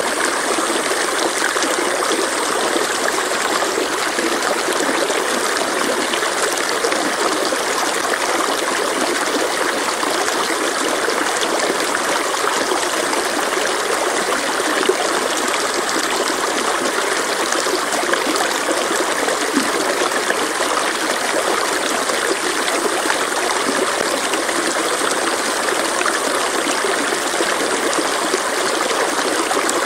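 Mountain stream rushing and splashing over rocks, a steady even wash of water noise.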